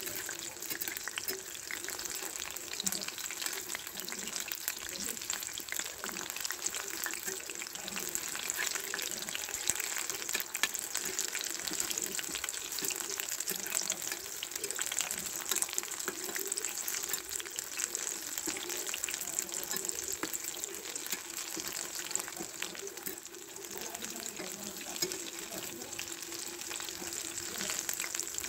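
Battered mushroom chops deep-frying in hot oil: a steady, dense sizzle full of fine crackles.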